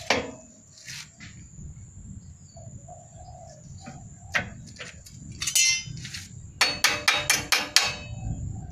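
Hammer striking thin steel sheet clamped in a homemade hand-operated bending brake: a few scattered knocks, then, about two-thirds of the way through, a quick run of about ten sharp metallic taps.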